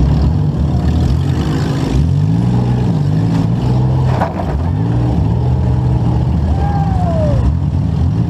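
A compact demolition derby car's engine running and revving up and down several times.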